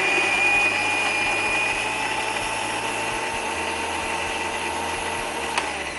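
Electric blender motor running steadily under load, grinding chutney, with a high-pitched whine over the noise. Near the end there is a click, and the motor then winds down.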